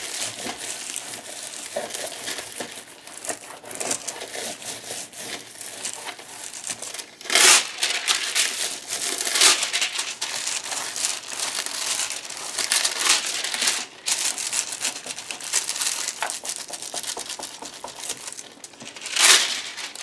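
Sheet of gold foil crinkling as hands press and rub it onto a tacky journal cover and peel it back, with louder crinkles about seven and nine seconds in and again near the end.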